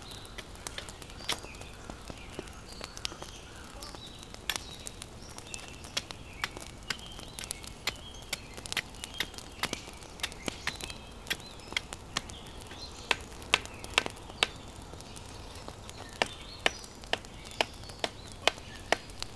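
Sharp, irregular knocks of firewood being chopped or split, about one or two a second and loudest in the second half, with birds chirping faintly.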